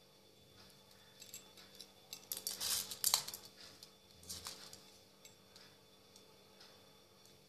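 Small plastic beads rattling and clicking against a steel bowl as they are picked up on a needle: a run of light clinks in the first half, then a short second run about a second later.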